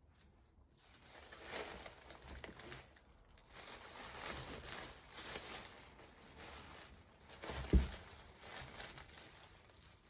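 White plastic wrapping crinkling and rustling as hands press and fold it around a cured epoxy resin piece. There is one short dull knock just before the eight-second mark.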